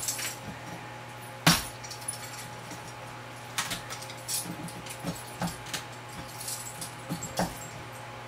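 Wooden frames in a beehive box being pried loose and shifted: scattered knocks and clicks, the loudest a sharp knock about a second and a half in, over a steady low hum.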